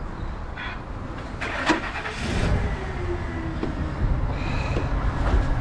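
A van's engine being started and then running with a steady low rumble, with a sharp click about a second and a half in.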